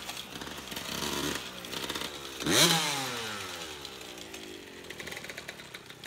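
Dirt bike engine running at low speed, revved hard once about two and a half seconds in, its pitch climbing sharply and then sliding back down as the throttle is eased off, growing quieter afterwards.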